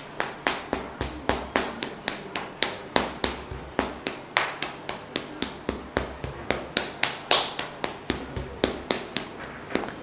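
Wooden mallet tapping on the muscles of a bare lower back, a steady run of light strikes at about four a second, used as percussion to relax the erector spinae.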